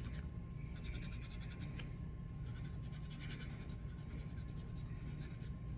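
A nail file scratching back and forth across the edge of a cross-stitch piece, filing down its rough, pokey edges in faint, repeated strokes.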